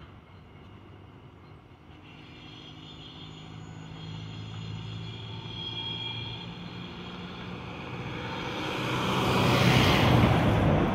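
GM SD38M diesel-electric locomotive approaching, its engine hum and wheel-on-rail rush growing steadily louder and loudest near the end.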